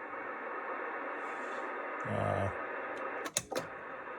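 Kenwood TS-820S transceiver putting out a steady, buzzy hum while keyed. Around three and a half seconds in it crackles twice and briefly drops out. The hum is the fault being chased, which the owner traces to a loose connection inside the radio.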